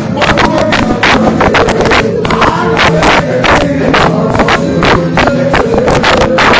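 Loud, fast, driving praise music, with drum strikes several times a second over sustained instrument tones, and a crowd's voices mixed in.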